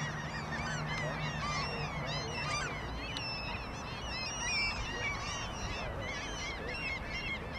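A flock of birds calling all together, many short chirping calls overlapping, with a low steady hum under them for the first couple of seconds.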